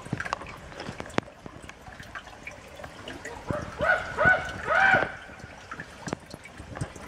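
Spring water trickling and dripping into a shallow rock pool, with scattered sharp drips. A little past halfway, three or four short pitched calls that rise and fall in pitch stand out as the loudest sound.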